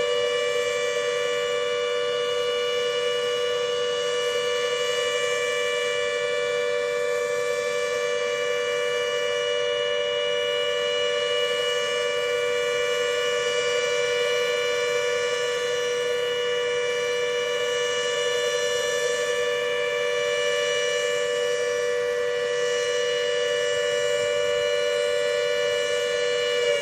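Braehead GP8 electromechanical siren running at full speed on test, holding a steady wail of two close tones sounding together.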